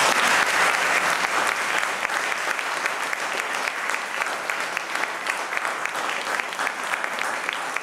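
Theatre audience applauding: a dense, continuous round of clapping, loudest at the start and easing off slightly.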